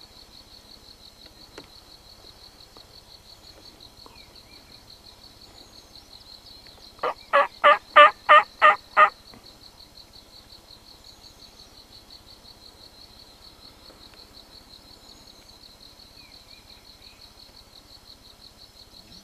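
Hand-worked wild turkey call giving a run of seven loud hen yelps, about three a second, for roughly two seconds near the middle, calling a gobbler in. An insect trills steadily underneath.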